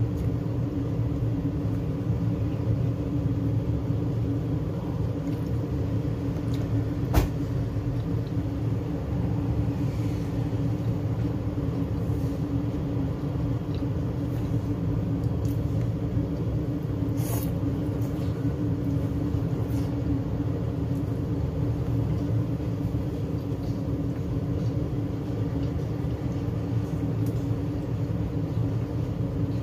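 A steady low mechanical hum with a droning tone, broken by a sharp click about seven seconds in and a fainter click about seventeen seconds in.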